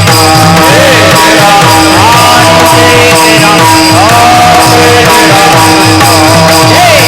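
Marathi devotional kirtan music: a singer's long, gliding vocal phrases over steady held instrumental tones and a fast, even drum rhythm.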